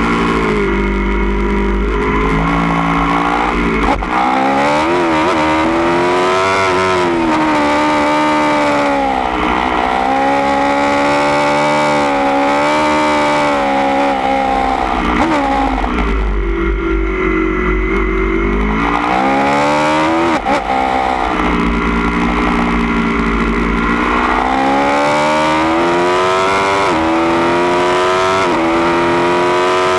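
A 2016 Aprilia Tuono V4 1100 Factory's V4 engine through a baffled Austin Racing GP1R exhaust, revving up under acceleration, dipping briefly at gear changes and falling away under braking, several times over. Wind rushes past the microphone at speed.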